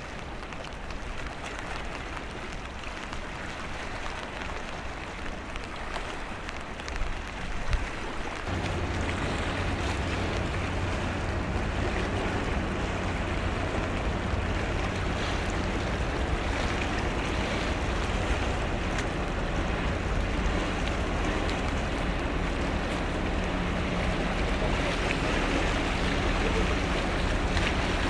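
Wind buffeting the microphone over water noise; from about eight seconds in, the steady low drone of the Japan Coast Guard surveying ship Shoyo's machinery joins in as the ship passes close by.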